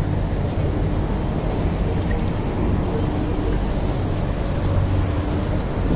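City street ambience: a steady rumble of road traffic with the low hum of engines running.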